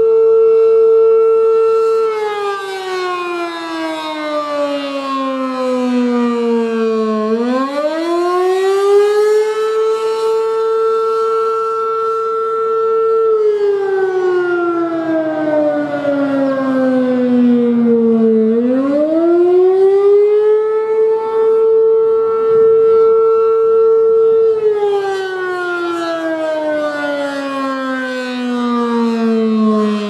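ACA P-10 single-tone rotating electromechanical siren sounding the attack signal. Its tone holds steady, falls slowly over about five seconds, then climbs quickly back and holds again, repeating roughly every eleven seconds. The sound swells and fades a little as the horn rotates.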